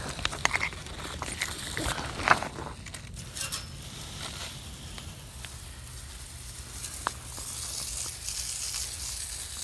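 Crinkling and rustling as a worker crawls against foil-faced insulation in a crawlspace, with scattered clicks and scrapes in the first few seconds. A low steady hum comes in about halfway, and a hiss rises near the end.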